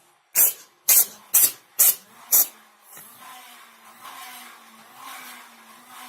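Kitten sneezing five times in quick succession, short sharp bursts about half a second apart. After that a steady hum and hiss carry on.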